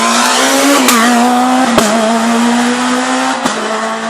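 Super 2000 rally car's naturally aspirated four-cylinder engine held at high revs, with a brief dip in pitch about a second in and two sharp cracks. The sound fades a little near the end.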